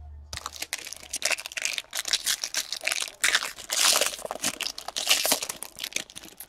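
Foil wrapper of a Bowman Draft Super Jumbo trading-card pack being torn open and crinkled by hand: a dense, irregular crackling that starts about a third of a second in and keeps going.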